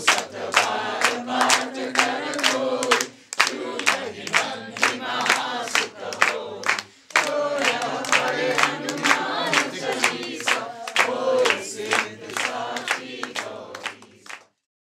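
A crowd of devotees singing a devotional chant together, with steady rhythmic hand clapping about three claps a second; the singing and clapping break off near the end.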